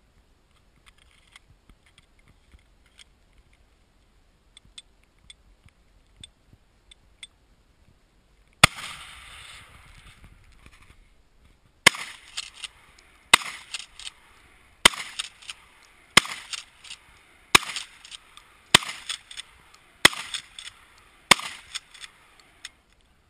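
Firearm shooting: a single shot about a third of the way in, then after a pause eight more shots at an even pace, roughly one every second and a quarter. Faint light ticking before the first shot.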